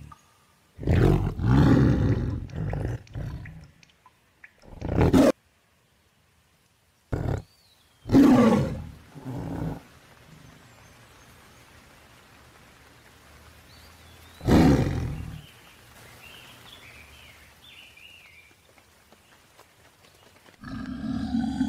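Tigers roaring and snarling in about six separate short bursts, with the loudest just after the start and around eight seconds in, and silent gaps between them.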